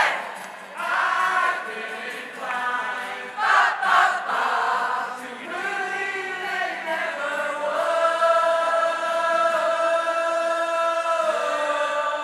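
A large amateur crowd choir singing together in unison, in short phrases at first and then holding one long note from about eight seconds in until near the end.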